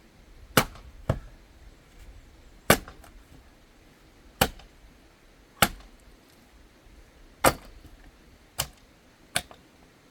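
Axe striking and splitting firewood: eight sharp cracks, most a second or two apart, a couple in quick pairs.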